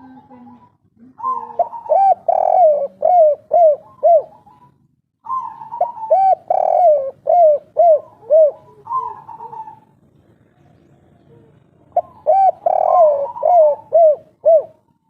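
A spotted dove singing its 'kuk 3' cooing song: three phrases of quick repeated coo notes, each rising and falling in pitch, with short pauses between the phrases.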